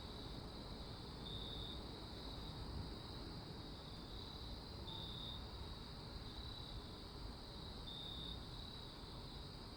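Crickets chirping in a night ambience: high, even-pitched trills that come in brighter runs about every three seconds, with fainter chirps between, over a steady background hiss.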